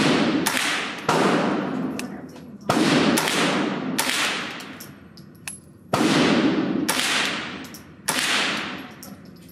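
Smith & Wesson M&P 15-22 rifle firing .22 LR rounds: a string of single shots about one to three seconds apart. Each shot echoes for a second or more in the hard-walled indoor range.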